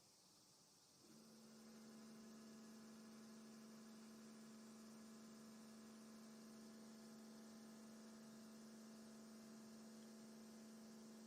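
Faint, steady hum at one fixed pitch with overtones, like an electrical or machine hum, starting about a second in and holding without change until it cuts off abruptly.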